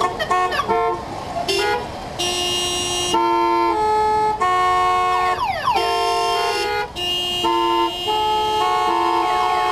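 Many car horns sounding together as a played ensemble: a few short toots, then loud held chords of several horns whose pitches change about once a second, with a falling glide about five seconds in.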